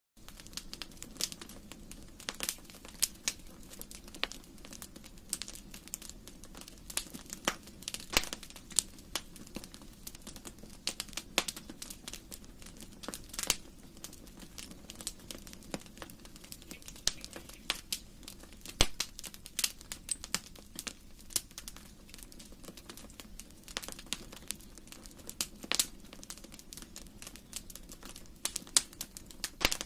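Fireplace fire crackling: irregular sharp pops and snaps, some much louder than others, over a low steady rush of the flames.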